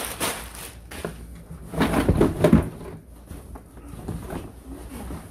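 Plastic packaging crinkling, then a louder run of knocks and scraping against a cardboard box about two seconds in as a car seat is lifted out of it.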